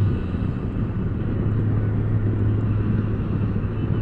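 Can-Am Spyder three-wheeled motorcycle's engine running steadily, a constant low hum under road and wind noise.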